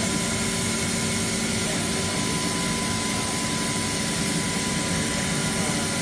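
Steady hum and fan noise of running equipment, with a thin steady high tone through it.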